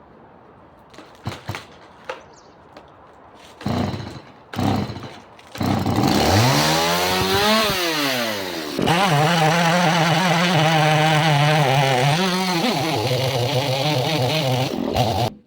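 A few knocks, then a two-stroke chainsaw engine starts about five seconds in. It revs up steeply and falls back, then holds a high steady speed that wavers slightly, and cuts off abruptly near the end.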